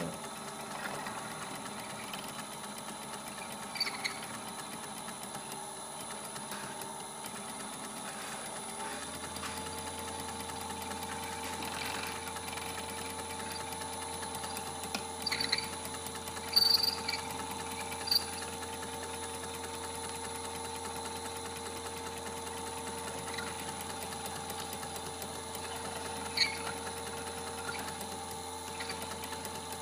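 Small electric rotary handpiece (micromotor) running steadily with a whine, its pitch stepping up about nine seconds in as its speed is raised, while a watch bezel is held against the spinning bit. A few short sharp clicks of metal on the bit, the loudest about seventeen seconds in.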